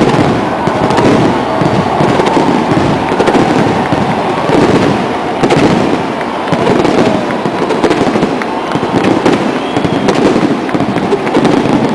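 Fireworks crackling: a dense, unbroken run of small pops and crackles.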